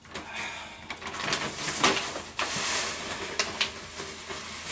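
Hands digging into and scooping dry potting soil, with rustling, scraping and several sharp clicks and rattles.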